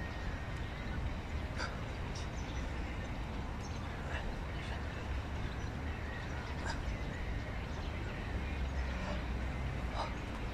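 Outdoor ambience: short bird calls every second or two over a steady low rumble of distant traffic.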